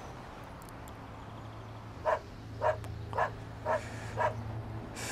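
A dog barks five times in quick succession, about twice a second, starting about two seconds in, over a steady low hum.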